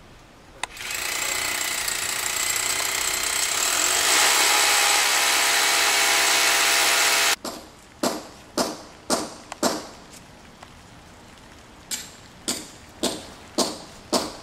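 Corded electric hammer drill boring into a brick wall, running steadily for about six and a half seconds and then cutting off suddenly. After it come two runs of sharp knocks, about two a second.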